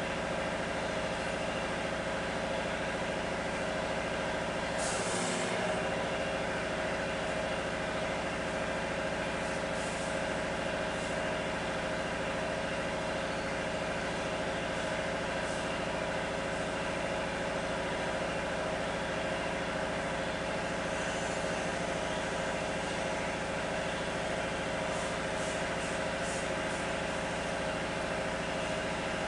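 A machine running with a steady, even hum, with one brief noise about five seconds in.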